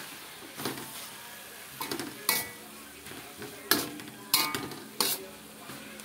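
Stainless-steel spoon scraping and clanking against an aluminium wok as pounded cassava leaves are stirred: about six irregular metallic strokes, some with a brief ring, over a faint steady frying sizzle.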